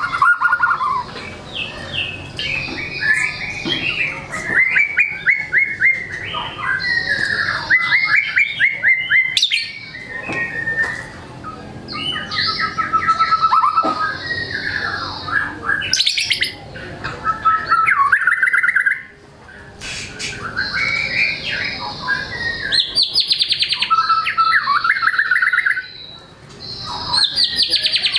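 White-rumped shama (murai batu) in full song: a long, varied run of rapid trills, rattles and whistles. The bird is running through its learned repertoire of phrases, with two short breaks about two-thirds of the way in and near the end.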